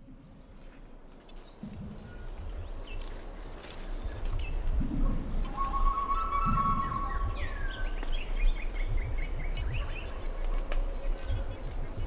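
Forest ambience fading in: a steady, high insect drone under birds chirping and calling, with a low uneven rumble underneath.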